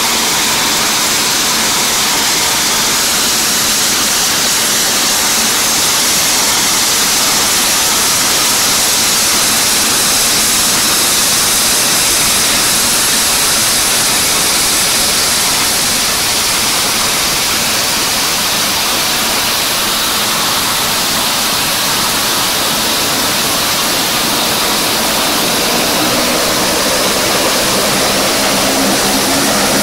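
Saab 340 twin-turboprop running on the ramp, making a loud, steady turbine hiss and whine. Near the end a low propeller hum of several stacked tones grows in as the aircraft taxis closer.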